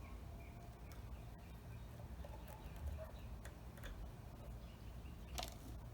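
Faint clicks and light taps of small metal and plastic engine parts being handled by hand during carburetor disassembly, a few scattered strikes over a low steady hum.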